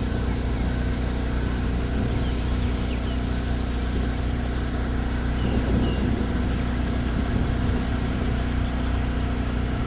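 A vehicle engine running steadily at an even pitch, with a few faint bird chirps above it.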